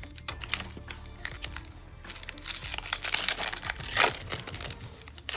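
Foil wrapper of a Magic: The Gathering booster pack crinkling and being torn open, with a dense stretch of crackling from about two seconds in and a sharp loudest rip near four seconds.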